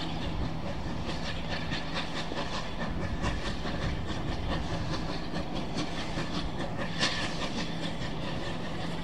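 Southern Railway Battle of Britain class steam locomotive 34081 '92 Squadron', a three-cylinder Bulleid Pacific, approaching under steam with its coaches: a steady rumble and clatter of wheels on rail, with quick beats and hiss from the locomotive. One louder knock comes about seven seconds in.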